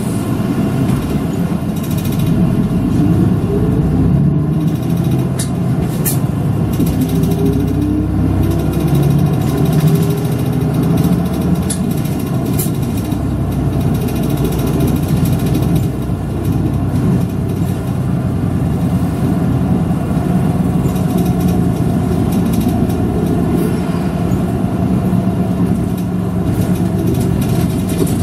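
Route bus engine running as the bus drives, with road and cabin noise, heard from inside the bus. The engine's pitch climbs a few times in the first ten seconds or so, then settles to a steady drone.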